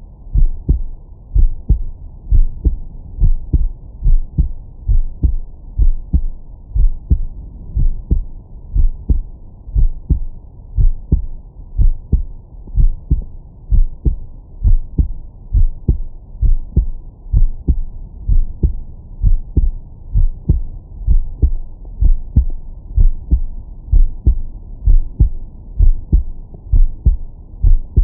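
A man's heartbeat heard through a Stemoscope digital stethoscope on the chest, filtered to 20–1000 Hz: a steady rhythm of paired thumps, loud and clear with a deep bass.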